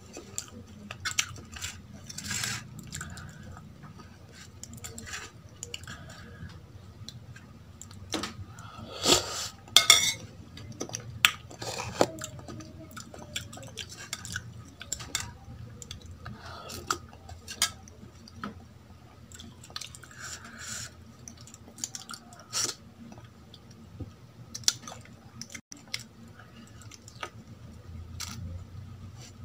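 Steel spoon clinking and scraping against a stainless-steel bowl and plate, mixed with chewing and eating sounds; a burst of louder clinks comes about nine to twelve seconds in.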